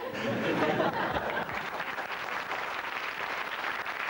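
Studio audience applauding: dense, steady clapping that starts suddenly and keeps going.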